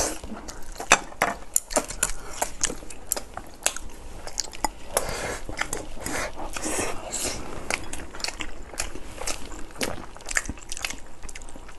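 Close-miked eating: wet, smacking bites and chewing of rice and saucy pork, with irregular clicks of chopsticks against glass bowls.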